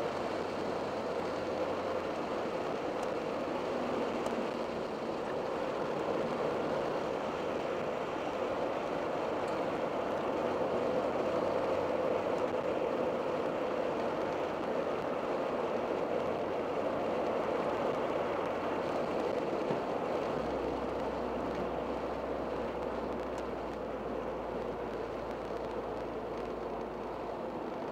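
Turbocharged 2.2-litre four-cylinder of a 1987 Dodge Daytona Shelby Z running at a steady cruise, mixed with tyre and road noise, heard from inside the car. The sound gets a little louder midway and eases again near the end. A low steady hum comes in about twenty seconds in and stops just before the end.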